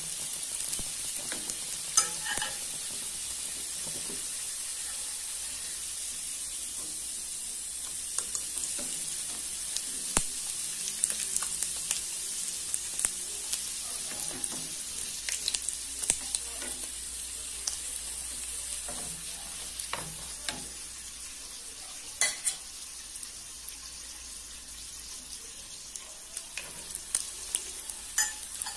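Pastéis sizzling steadily in hot oil in an aluminium frying pan, a high even hiss. Sharp clicks of a fork and slotted spatula against the pan come now and then as the pastries are turned, the loudest about two seconds in and about 22 seconds in.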